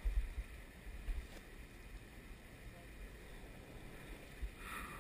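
Steady rushing of river water, with low wind buffeting on the microphone in the first half second.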